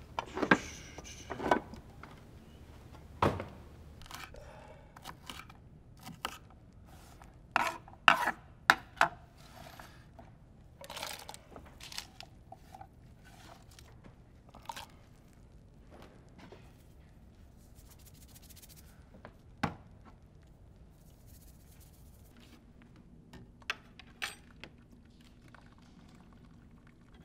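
Kitchen handling noises: irregular knocks, clinks and scrapes as cans and dishes are taken down and handled and food is prepared at a wooden cutting board. The sounds come thick in the first half and grow sparse, with a few isolated taps later on.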